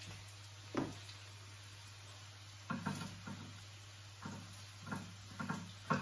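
Kitchen knocks and taps from cooking work: one sharp knock just under a second in, then a run of about six shorter knocks over the last three seconds, over a steady low hum.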